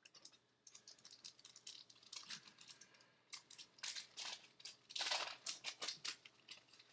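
A Bowman Chrome baseball card pack being opened and handled: irregular faint crinkles and clicks of the foil wrapper and cards, busiest in the second half.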